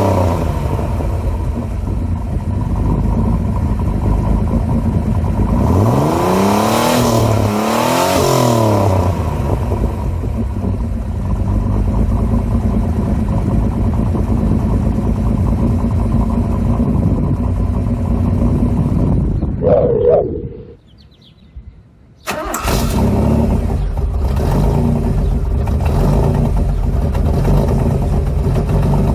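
1987 Pontiac Fiero GT's V6 exhaust idling, with two quick blips of the throttle where the revs rise and fall. About twenty seconds in the sound stops for a couple of seconds, then the engine starts and settles back to a steady idle.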